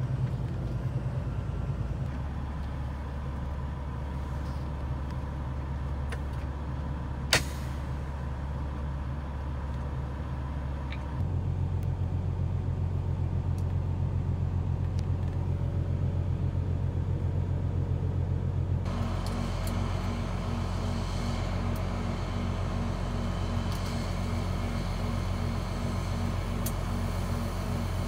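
Semi truck's diesel engine idling, heard from inside the cab: a steady low hum that steps to a different pitch a few times. A single sharp click comes about seven seconds in.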